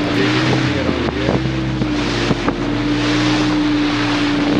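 A tour boat's engine running steadily under way, a constant drone, with wind noise on the microphone.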